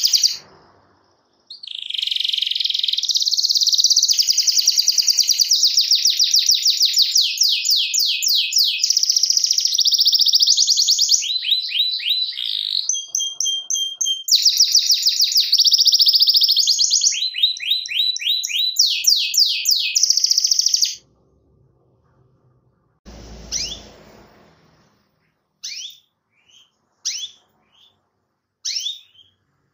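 Domestic canary singing a long, loud song of rapid rolling trills, with quick changes between trill types, until it breaks off about two-thirds of the way through. After a brief low rumble it gives short, separate high chirps.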